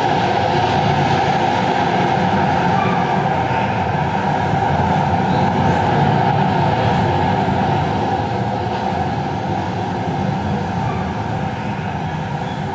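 A steady, continuous rumble of a rail transit train running along its tracks.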